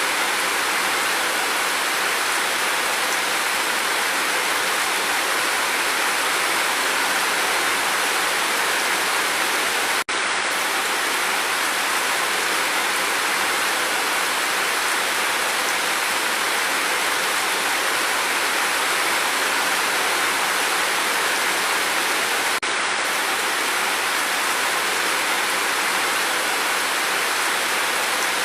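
Steady, even rain with no thunder. It dips for a split second twice, about ten and twenty-three seconds in.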